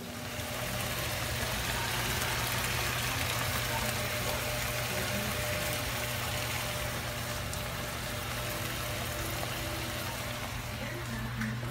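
Steady kitchen noise while food cooks in frying pans on the stove: an even hiss with a low hum beneath it, starting about half a second in.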